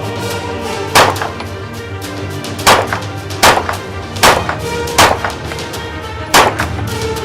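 Ruger PC Carbine, a 9mm pistol-calibre carbine, firing six single shots at an uneven pace, over background music.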